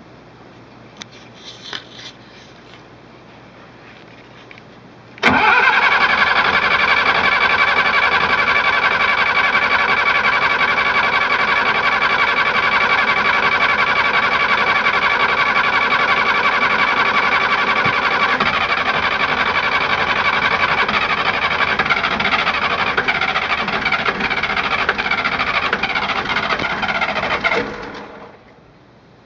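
Westerbeke Four-60 marine diesel cranked on its starter for about twenty seconds, steady and loud, starting suddenly about five seconds in and stopping shortly before the end. It is a long crank of a hard-starting engine.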